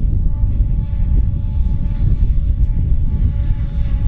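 Krone Big X 780 self-propelled forage harvester chopping corn under load: a steady, heavy rumble from its V12 engine and chopping drum with a constant whine on top, together with the tractor hauling the silage wagon alongside.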